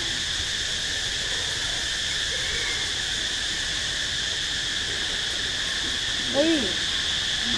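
Steady drone of insects (crickets or cicadas) in a forest, holding an even high pitch throughout. About six seconds in, a single short call rises and falls once.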